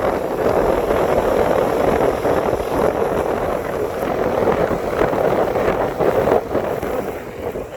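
Carrier gas pack air conditioner running close up: a loud, steady whoosh from the condenser fan, driven by a GE fan motor. The sound eases a little near the end.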